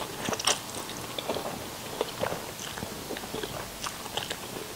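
A person slurping up a mouthful of rice noodles about half a second in, then chewing with a string of small wet clicks and smacks, picked up close by a clip-on microphone.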